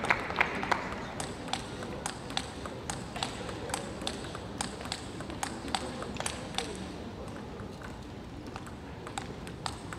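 Table tennis ball bounced repeatedly, light ticking at about two to three bounces a second, while a player readies to serve; the ticks thin out near the end. Brief applause fades out at the very start.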